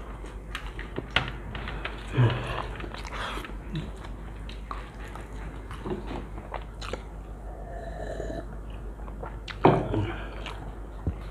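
People eating mutton kacchi biryani by hand, with chewing and mouth sounds. Scattered clicks and a couple of louder knocks come through, about two seconds in and near the end.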